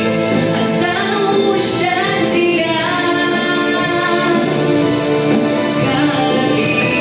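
A song playing: a sung vocal line with held, wordless notes over an instrumental backing track.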